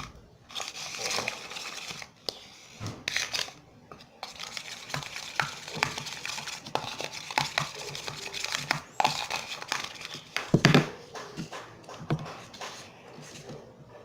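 Slime mix of glue and boric acid water being stirred hard in a bowl with a utensil: continuous irregular scraping and clicking, with one louder knock about ten and a half seconds in. The mix has not yet thickened.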